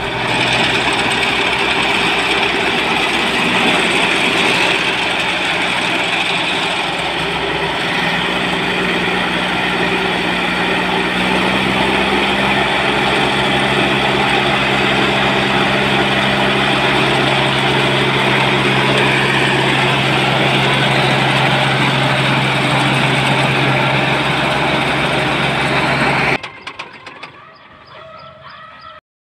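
Single-cylinder diesel engine running on a homemade tracked spraying machine, its speed stepping up a few times in the first half and then holding steady. Near the end the sound drops suddenly to a much quieter engine hum.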